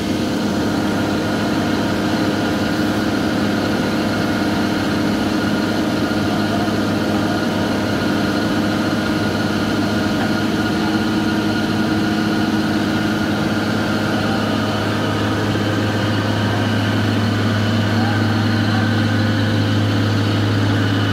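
Diesel engine of a JCB tracked excavator running steadily as the machine drives down off a lowboy trailer, a continuous low drone that grows a little stronger in the last few seconds.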